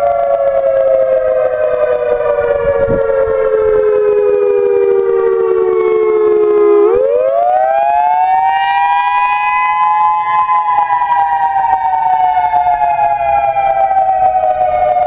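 EOWS-612 electronic tornado warning siren sounding a wail during a test. Its pitch glides slowly down for about seven seconds, sweeps back up over a couple of seconds, then starts falling again.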